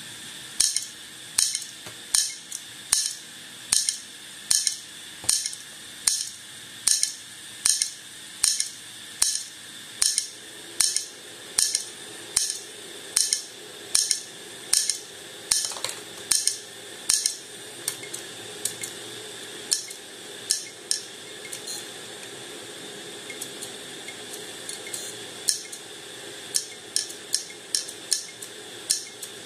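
Opened hard disk drive running with its read/write head arm clicking about twice a second over a steady high whine: the repeated clicking of a failing drive. The clicks thin out after about seventeen seconds and come back in a quicker run near the end.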